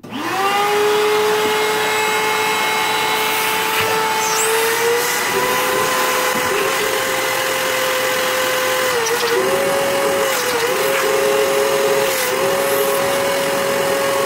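Shop vac switched on, its motor spinning up in under a second and then running steadily as it sucks engine coolant out of a snowmobile's cooling system through the reservoir's bottom outlet. Its pitch steps up slightly a few seconds in and dips briefly several times later as the load changes.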